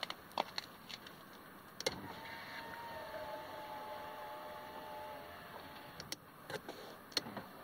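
The working front passenger power window motor of a 2004 Dodge Grand Caravan runs for about three seconds as a steady whine, moving the glass. Sharp clicks come before it and several more near the end.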